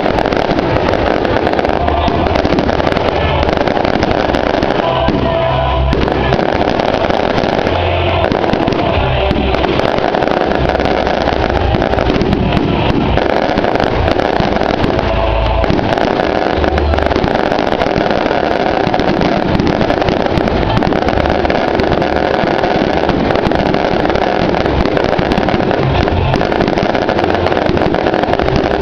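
Steady loud mix of music and crackling, popping fireworks or firecrackers, with voices underneath.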